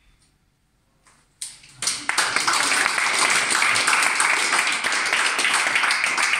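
A group of people applauding. The clapping starts about a second and a half in and quickly swells into dense, steady applause.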